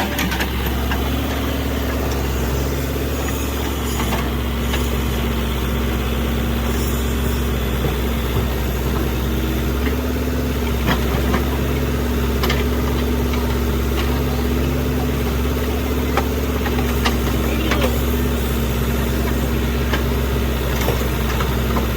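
A JCB backhoe loader's diesel engine running steadily, with a few sharp knocks scattered through it.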